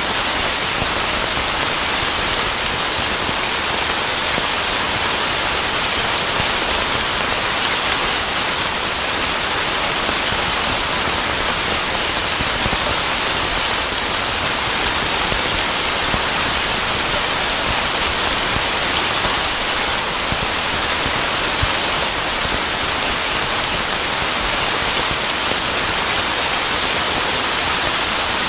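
Steady, even heavy rain falling on a surface, with no thunder heard.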